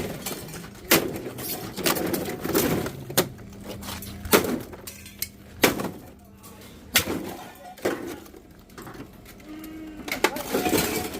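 Scrap metal being handled and dropped: a string of irregular sharp clanks and knocks, several ringing briefly, over a steady low hum.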